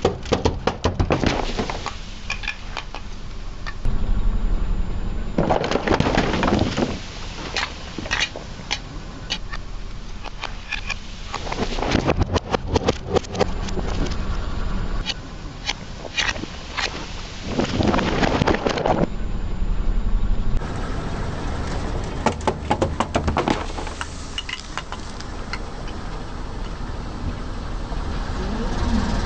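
A car tyre rolling slowly over brittle objects and crushing them, with dense crackling and snapping that builds into several louder crunches, over a steady low rumble. The sound changes abruptly a few times as one short crushing clip gives way to the next.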